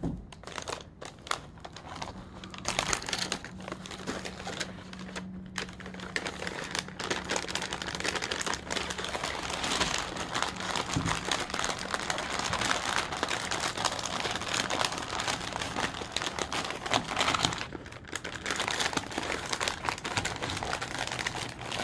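Plastic MRE packaging crinkling and rustling as the flameless ration heater bag is handled and a pouch is slid inside it, with brief lulls in the handling.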